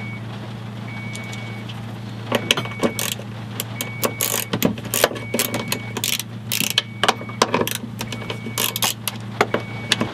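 Metal clicks and clatters of a 1994 Subaru Legacy's in-tank fuel pump assembly being handled and worked loose in its hatch, thickest from about two seconds in. Under it run a steady low hum and a short beep repeating about once a second, both cutting off at the very end.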